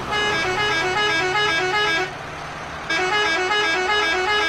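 Bus's musical multi-tone horn sounding a quick, repeating jingle of stepping notes, in two phrases with a short break about two seconds in. A steady low rumble runs underneath.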